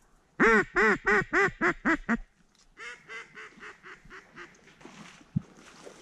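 Duck call blown to imitate a mallard hen: a loud run of about seven quacks, then a softer, quicker string of quacks.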